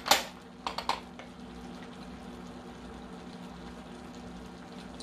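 Wooden spoon scraping against a small ceramic bowl while stirring a soy sauce dipping sauce, a few short strokes in the first second, then a faint steady hiss and low hum.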